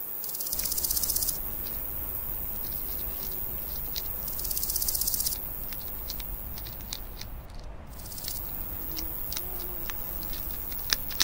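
Two loud bursts of high-pitched, rapidly pulsed insect chirring, each about a second long, one at the start and one about four and a half seconds in. Between and after them, scattered soft clicks from baby hedgehogs chewing their food.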